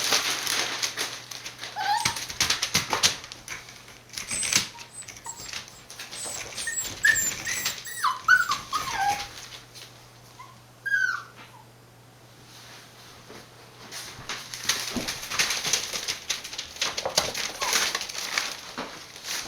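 Six-week-old Border Collie puppies whimpering and yipping in short, high calls that bend in pitch, mixed with many quick clicks and rustles. A faint steady low hum runs underneath.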